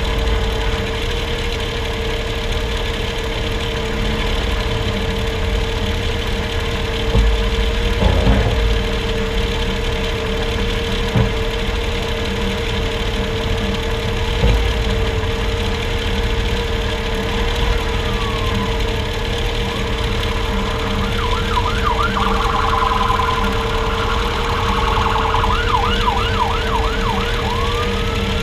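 Road noise and a steady hum from under a moving truck with a solid front axle, with a few thumps about a quarter of the way in. In the second half an emergency-vehicle siren wails and then yelps in quick rising and falling sweeps.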